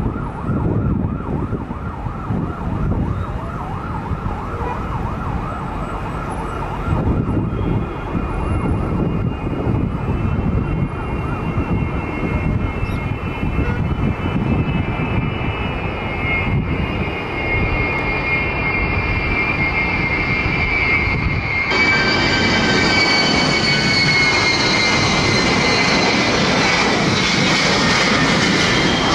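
Ilyushin Il-76TD's four Soloviev D-30KP turbofan engines whining on approach to land, over a low rumble. The whine grows stronger, and about two-thirds of the way through it jumps to a closer, louder, steady whine as the jet passes low overhead.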